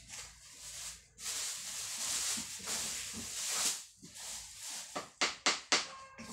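Clear plastic bag rustling and crinkling as it is pulled off a boxed speaker, with a few sharp crackles of the plastic about five seconds in.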